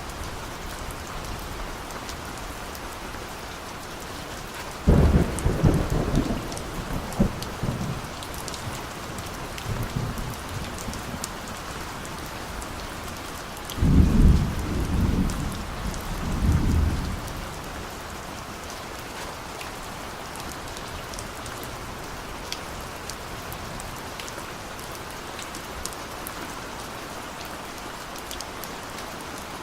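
Steady rain falling, with scattered drop ticks. Thunder rumbles twice, first about five seconds in and again about fourteen seconds in; each starts suddenly and rolls off over a few seconds, with a fainter grumble between them.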